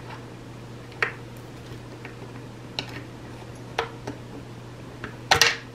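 Metal forceps clicking and scraping against a chainsaw's plastic fuel tank and housing while the old fuel line is worked out of the tank: a few light clicks, then a louder scraping rattle near the end, over a steady low hum.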